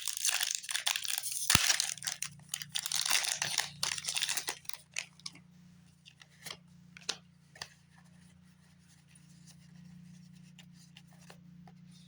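Foil Pokémon booster pack wrapper being torn open and crinkled for the first four seconds or so, followed by a few light clicks and rustles of the cards being handled.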